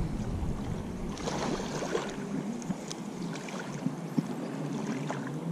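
Outdoor riverside ambience: wind buffeting the microphone, easing about a second in, under a steady hiss with a few faint clicks.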